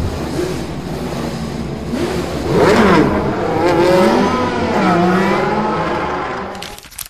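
Race car engine revving, its pitch swooping up and down, loudest about three seconds in like a car passing by.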